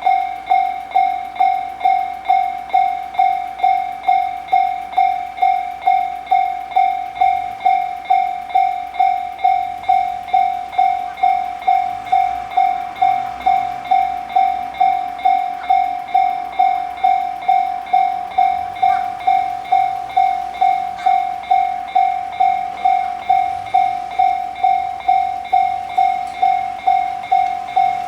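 Japanese railroad crossing warning bell ringing its steady 'kan-kan' alarm, about two strikes a second. A train runs faintly past in the middle.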